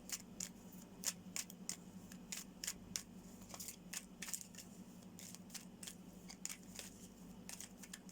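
Deck of tarot cards shuffled by hand: a quick, irregular run of soft crisp clicks and snaps of card edges, over a faint steady hum.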